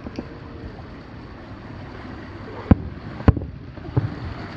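Distant aerial firework shells bursting: sharp bangs, the two loudest about half a second apart just past the middle, with smaller ones near the start and end, over a steady noisy background.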